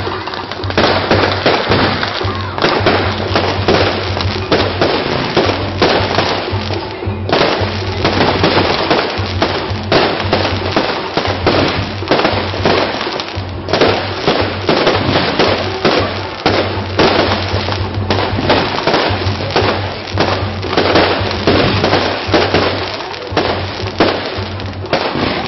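Fireworks display going off in rapid succession: a dense run of bangs and crackling bursts with no real pause, while music plays alongside.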